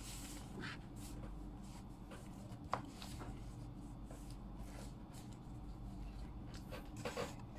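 Paper sheets rustling as they are handled and turned, in short scattered strokes, with a sharp tap about a third of the way in and a busier patch of rustling near the end, over a faint steady hum.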